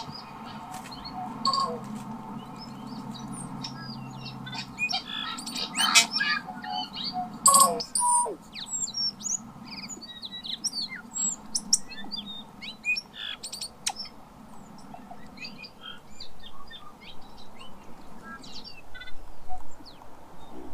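Tui singing: a long, varied run of short whistled notes, sharp clicks and quick gliding phrases, some louder notes standing out.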